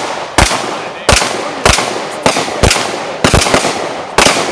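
A string of about eight semi-automatic rifle shots from an AR-style rifle, fired at an uneven pace of roughly one to two a second, each crack trailing off in a short echo.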